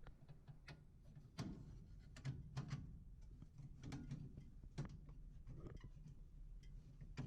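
Scattered light clicks and knocks of hands and tools working on a gas furnace's burner assembly, over a steady low hum.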